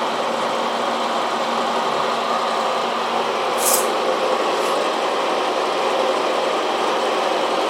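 A steady mechanical drone, with a brief high hiss about three and a half seconds in.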